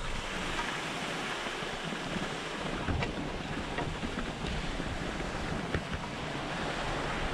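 Steady hiss of skis sliding over groomed snow while being towed up by a surface drag lift, mixed with wind on the microphone and a few faint clicks.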